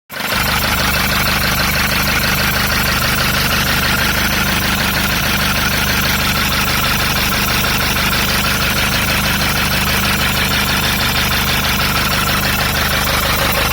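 Car engine idling steadily, with a fast, regular ticking running through it: the extraneous noise in the engine that the owner wants identified.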